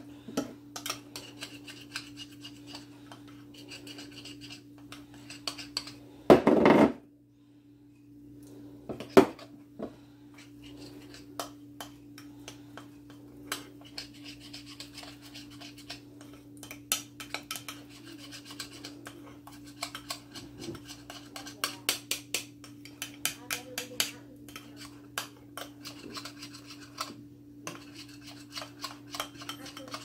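Metal spoon scraping and clinking against a small glass bowl, stirring powdered sour cream and water into a thick paste, in quick irregular strokes. A brief loud knock comes about six and a half seconds in, and a steady low hum runs underneath.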